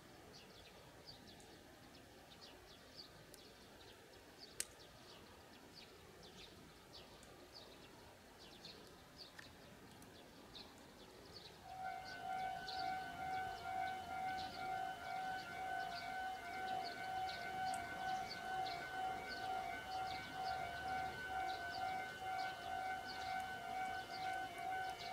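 Faint background with short high chirps. About twelve seconds in, a loud alarm starts ringing: a steady tone with several fixed pitches, pulsing rapidly without a break.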